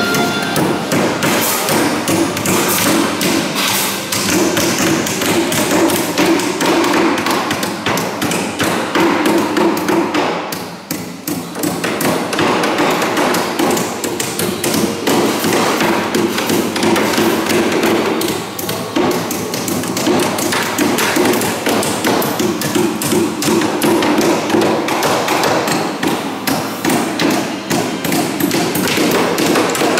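Hammering: many quick, overlapping hammer strikes, as from several hammers going at once on the timber of a wooden king boat under construction.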